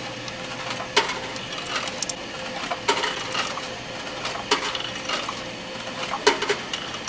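Quarters being fed into a snack vending machine's coin slot, each one clinking down through the coin mechanism: six or seven separate metallic clinks at uneven intervals, over a steady faint hum.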